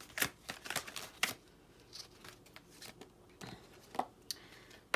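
Tarot cards being shuffled and handled by hand: a quick run of card slaps in the first second or so, then a few soft, scattered taps as the deck is handled over a wooden table.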